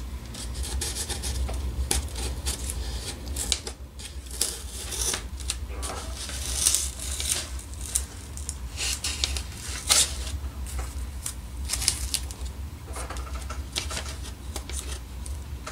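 Blue painter's tape being peeled off a foam model seaplane float: an irregular run of crackling rips and rustles, strips pulled away one after another.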